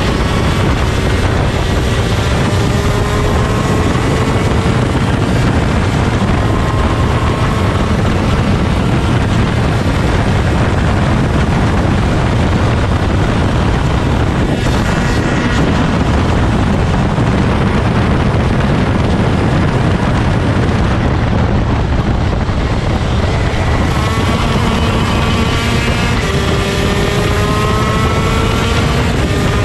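A 125cc two-stroke shifter kart engine at racing speed, its pitch climbing steadily through the gears as it accelerates, with a low rumble of wind buffeting the microphone.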